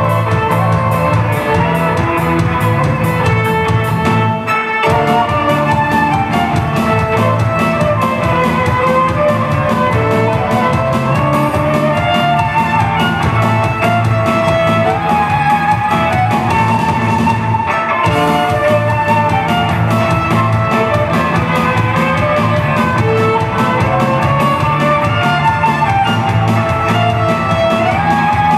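Live band playing a traditional Gypsy tune: a violin carries the melody over electric guitars and a drum kit. The cymbals drop out briefly twice.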